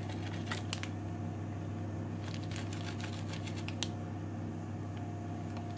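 Pizza cutter wheel rolling through an uncooked shortcrust pastry roll onto baking paper: a few light clicks and faint scraping, over a steady low hum.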